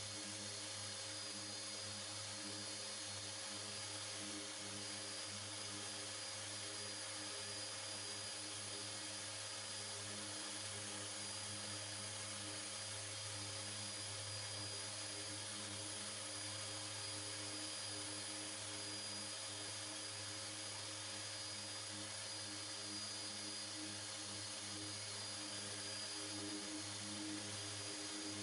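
Electric random orbital sander with dust extraction running steadily, sanding primer on a car body panel with fine abrasive mesh.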